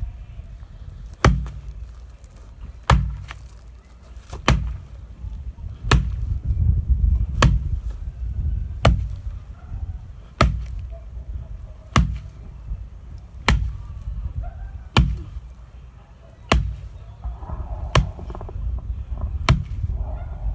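Homemade mini sledgehammer striking a target dummy over and over: sharp heavy whacks at a steady pace of about one every second and a half, some fourteen blows in all.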